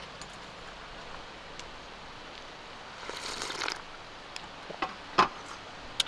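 A slurp of cold kimchi noodle broth drunk straight from a stainless bowl about three seconds in, followed by a few light clicks of tableware and one sharper knock near the end, over a steady outdoor hiss.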